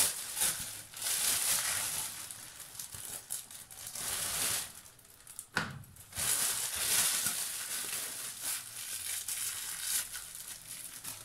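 Thin plastic bread bag crinkling and rustling in the hands as slices of bread are pulled out of it, with one sharp knock about halfway through.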